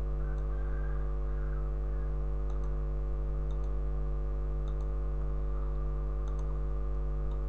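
Steady low electrical hum on the recording, with faint computer-mouse clicks every second or so, several of them in quick pairs like double-clicks.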